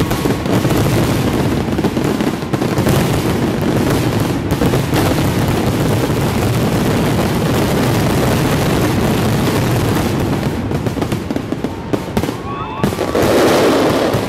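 Aerial fireworks going off in a dense, continuous barrage of overlapping booms and crackling, with a louder swell for about a second near the end.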